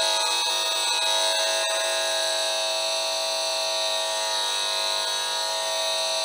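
Esmog Spion EMF meter's speaker giving a steady electronic buzz with many overtones: the meter's audio rendering of the electric field it picks up from the grounded computer side panels. A few faint clicks come in the first couple of seconds.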